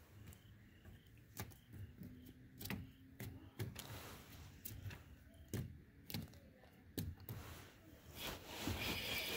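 Scattered faint clicks and light knocks at irregular spacing, with a hiss that rises near the end.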